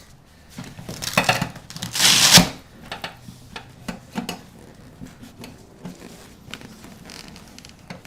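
A throwover motorcycle saddlebag being handled and fitted: a loud rustling sweep of the bag's material between about one and two and a half seconds in, then scattered light knocks and clicks as its stainless steel bracket is worked onto the bike's saddlebag bracket.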